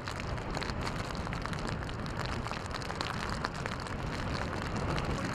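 Heavy rain falling steadily, a dense hiss of many small drop hits with a low rumble underneath.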